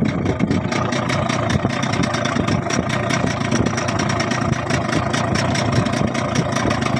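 Small boat engine running steadily with a fast, even pulsing.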